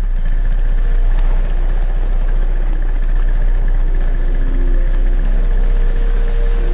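An engine running steadily at an even speed, a dense low chugging with no change in pace.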